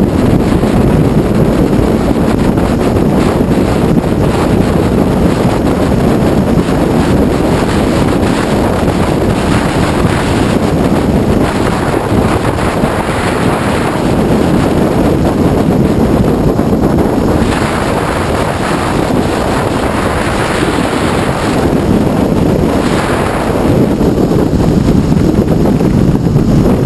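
Wind buffeting the microphone on a Honda ST1100 Pan European motorcycle ridden at dual-carriageway speed: a loud, steady rush of wind with the bike's running and road noise underneath.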